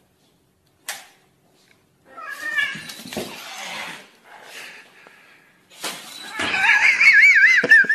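Domestic cat yowling at a puppy: drawn-out warning cries that waver up and down in pitch. They start about two seconds in and are loudest and most warbling near the end. A single click comes about a second in.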